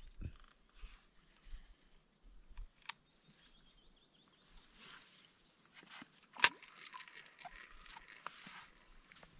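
Spinning reel and rod being handled in a canoe: faint scattered clicks, one sharp click a little past the middle as the reel's bail snaps over, then the reel being wound in.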